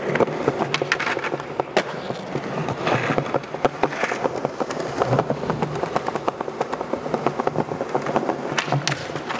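Skateboard wheels rolling on smooth stone paving with a steady rough rumble, broken by repeated sharp clacks of the board against the ground.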